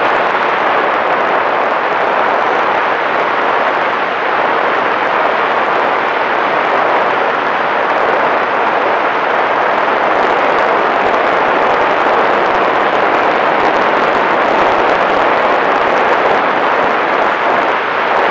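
Loud, steady rush of airflow and motor noise picked up by the onboard camera of a small fixed-wing drone in flight.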